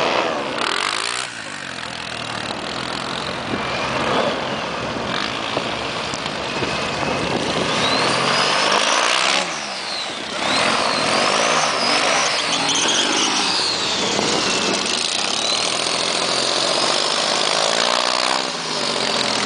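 Airboat engine and propeller running hard as the boat speeds across shallow water, its pitch rising and falling. It passes close by about halfway through.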